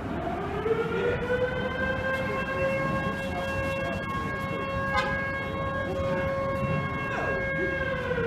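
Federal Signal Model 2 electromechanical siren sounding the Attack signal, heard at a distance: its wail winds up over the first couple of seconds, holds a steady pitch, then begins to wind down near the end. A single sharp click sounds about halfway through.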